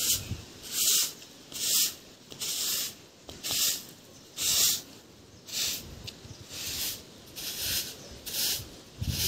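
Stiff twig broom (jhadu) sweeping a concrete roof in short, even strokes, about one swish a second.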